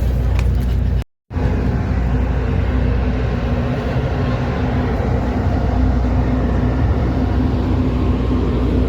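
Passenger ferry's engines running under way: a steady low hum with a broad rushing noise over it. The sound cuts out for a moment about a second in.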